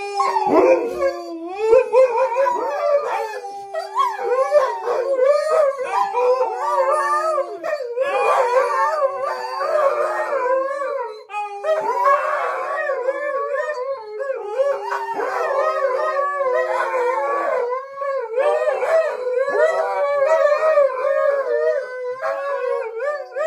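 Two Alaskan malamutes howling together: one holds long, slowly falling low notes while the other's howls waver higher. Near the end the low voice drops out and only one dog keeps howling.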